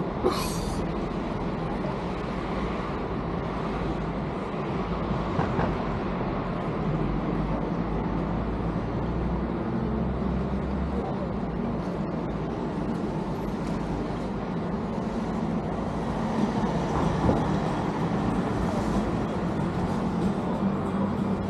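Steady running noise of a moving vehicle: a continuous low rumble and hum. A brief high-pitched squeal comes just after the start.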